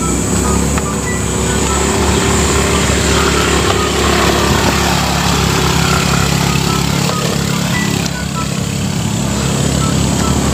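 Motorcycle engines running steadily while riding over a rough gravel road, with road noise under the engine tone.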